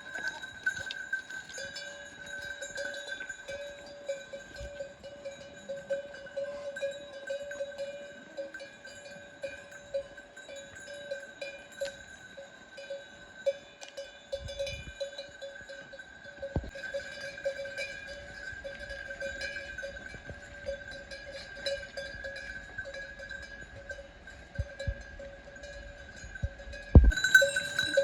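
Livestock neck bells clinking and ringing continuously as a herd moves about. A loud knock sounds near the end.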